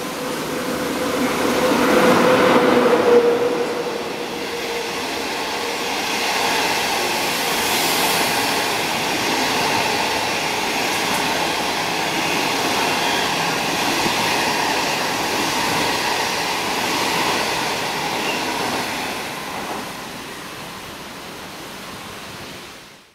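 SS8 electric locomotive hauling 25T passenger coaches, passing a station platform at speed without stopping. It is loudest as the locomotive goes by about two to three seconds in, with a steady tone during the approach. Then comes the even rolling noise of the coaches running past, which dies away near the end as the train leaves.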